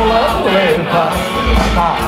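Live rock band playing loudly: electric guitars, bass and drums. A melody line bends up and down in pitch over low drum and bass beats.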